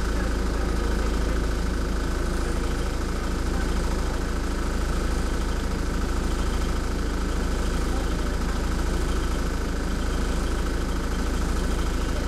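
The diesel engine of an Alexander Dennis Dart single-deck bus idling with the bus at a standstill, heard from inside the passenger saloon as a steady deep drone with a rattling hum.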